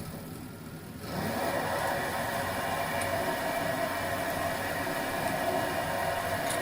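Homemade lathe's electric motor starting about a second in, then running at a steady whir.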